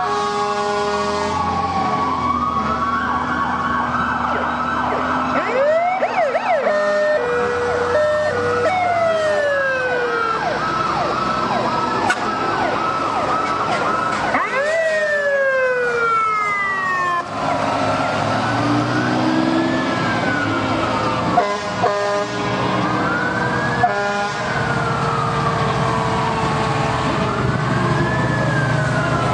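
Several fire truck sirens sounding at once from passing fire engines, overlapping wails rising and falling in pitch every few seconds, with some faster sweeps and a few steady held tones. Truck engines run underneath.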